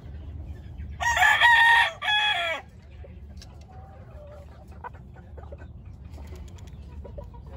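A rooster crows once, starting about a second in, in one loud call with a brief break near its end. Afterwards there are faint soft clucks and light ticks, fitting a bird pecking at feed on the ground.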